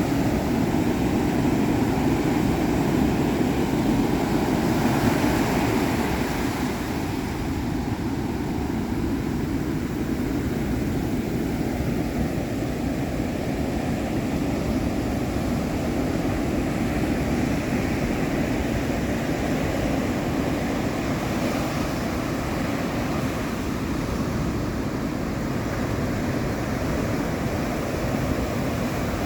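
Ocean waves: a steady rush of surf that swells and eases, louder for a couple of seconds about four seconds in.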